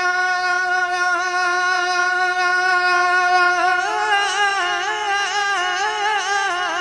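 Male singer holding one long sung note without words, then breaking into a wavering, ornamented melody from about four seconds in, part of a devotional naat.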